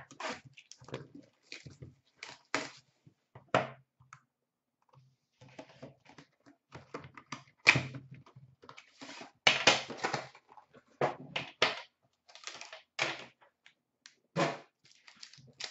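Cardboard hockey card box being handled and opened by hand: a scatter of short taps, clicks and scuffs of cardboard, with the sharpest knocks about halfway through.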